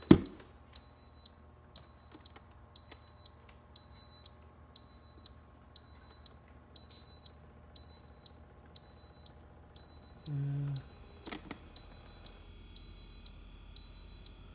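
Bosch refrigerator's alarm beeping, short high-pitched beeps about twice a second, with a sharp knock right at the start.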